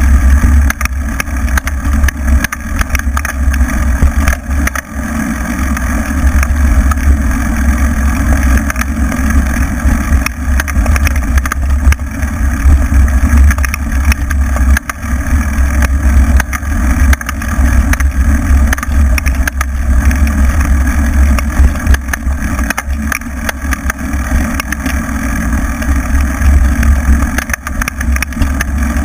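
Wind buffeting the microphone of a camera on a moving mountain bike, a steady low rumble, with frequent knocks and rattles as the bike's tyres run over a bumpy dirt trail.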